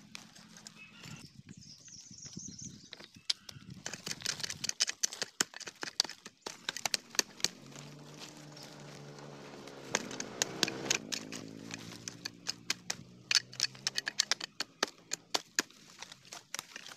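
A metal blade chopping and scraping into dry, stony soil around a shrub's roots, making many sharp, irregular knocks and clicks. A low steady hum swells and fades in the middle.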